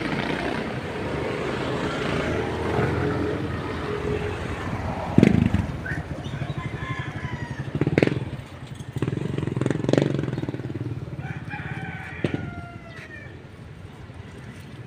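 A rooster crowing twice, once from about six and a half seconds in and again about twelve seconds in, over a low steady engine rumble. A loud knock about five seconds in, and softer knocks near the middle.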